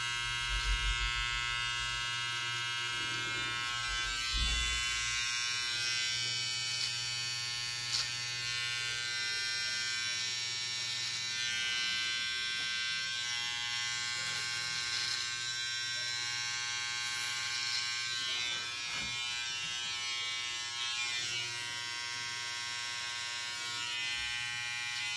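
A Babyliss FX Skeleton finishing trimmer runs with a steady electric buzz as it cuts away long moustache hairs. A few light knocks and a short click come in the first eight seconds.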